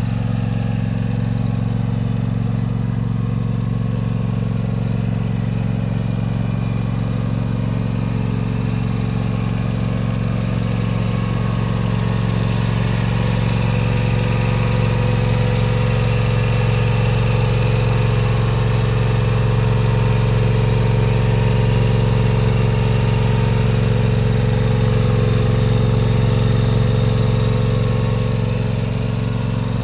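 Gasoline engine of a 2011 Country Clipper JaZee Pro zero-turn mower running steadily. It grows somewhat louder through the second half, then eases off near the end.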